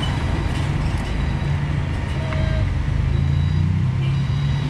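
Road traffic close by: vehicle engines running with a steady low hum under a noisy wash of traffic.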